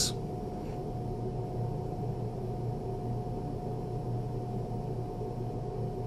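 New Holland skid-steer loader's engine running steadily, a constant low hum with a steady higher tone over it.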